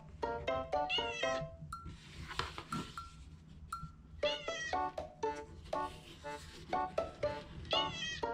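Cat meowing in three runs of short calls, over background music.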